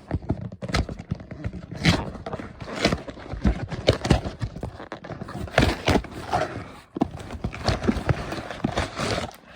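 A package being opened by hand: irregular knocks and taps with scraping and rustling of cardboard and packaging.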